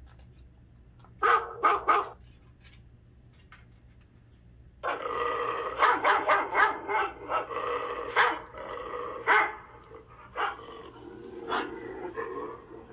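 A dachshund barks three times in quick succession. After a short pause it makes about eight seconds of continuous growling vocalizing, broken by repeated sharp barks.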